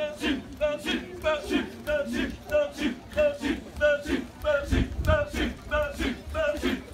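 Kecak chorus of many men chanting the interlocking 'cak-cak-cak' of Balinese kecak in unison, in a fast, even rhythm. A brief low rumble comes about five seconds in.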